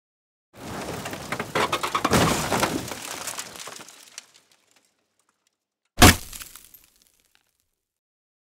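Crash sound effect: a few seconds of cracking and breaking that builds and then fades, followed about six seconds in by one sharp, heavy impact. It stands in for the drone falling through branches and hitting the ground.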